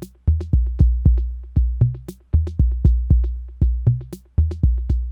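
Arturia DrumBrute analog drum machine playing a steady beat: deep, booming kick drum with Ableton overdrive on it for grit, and sharp, short clicky hits between the kicks, several hits a second.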